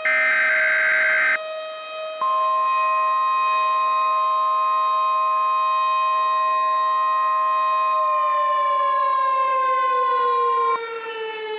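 An Emergency Alert System header burst ends about a second in. A steady NOAA Weather Radio warning alarm tone then sounds for about eight seconds and cuts off. Throughout, a tornado warning siren wails under it, its pitch falling from about eight seconds in and starting to rise again near the end.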